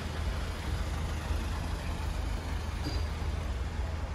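Steady low rumble of vehicle traffic, with wind on the microphone.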